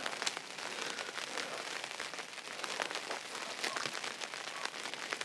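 Rain pattering on a tent roof: a steady hiss with many small, quick drop taps.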